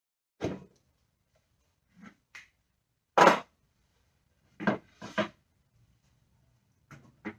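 Irregular sharp knocks and clatters of tools and a laminated shelf board being handled on a workbench, about nine separate hits with the loudest a little past three seconds in.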